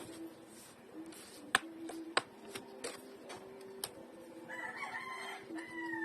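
A rooster crows once, a drawn-out call near the end that falls in pitch as it finishes. A few sharp clicks and taps come before it.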